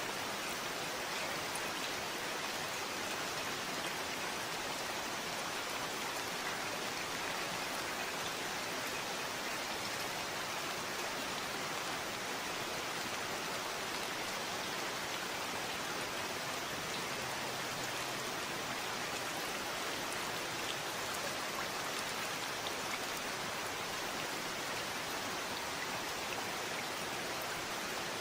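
Steady, even rainfall: a constant hiss of falling rain with faint patter of drops.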